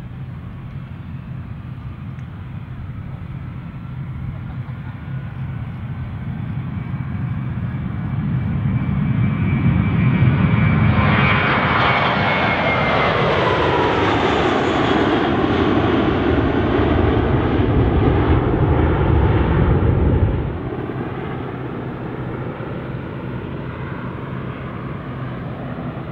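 Twin-engine Airbus A320 jet taking off: its engine noise at takeoff power builds as it rolls and lifts off, grows loud as it passes close, and its engine whine glides down in pitch as it climbs away. It cuts off abruptly about 20 seconds in, giving way to a quieter steady engine sound.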